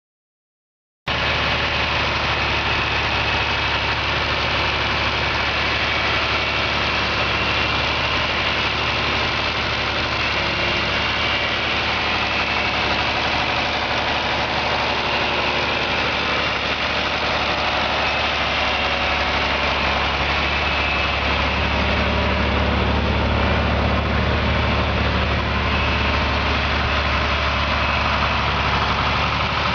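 A 1968 John Deere 4020 tractor's 6.6-litre six-cylinder diesel engine running steadily. It starts about a second in, and its low drone grows louder in the last third as the tractor is driven.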